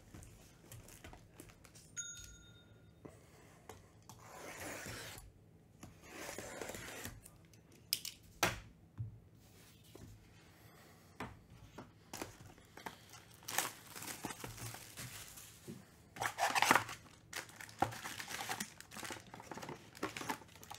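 Cardboard trading-card hobby boxes handled and slid on a table, then torn open with tearing and crinkling of wrap as the foil packs are pulled out. A short steady high tone sounds about two seconds in.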